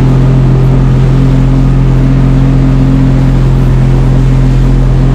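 Boat engine running steadily under way, with the rush of water from the hull and wake.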